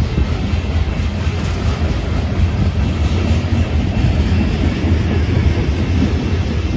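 BNSF freight train of covered hopper cars passing at speed: the wheels on the rails and the cars make a loud, steady low rumble.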